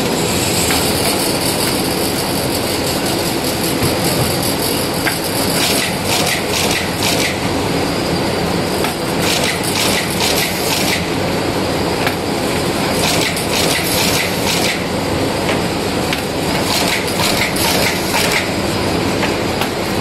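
Automatic notebook wire-stitching and folding machine running: a steady loud mechanical clatter, with clusters of sharp clicking every three to four seconds.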